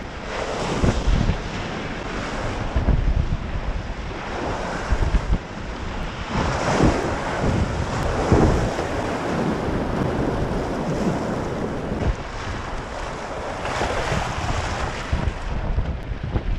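River water rushing and splashing around a kayak, with wind buffeting the microphone in irregular gusts.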